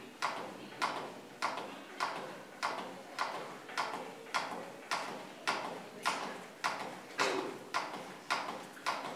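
CPR training manikin clicking under a steady run of chest compressions, one sharp click per push at nearly two a second, about sixteen in all: a 30-compression cycle of CPR in progress.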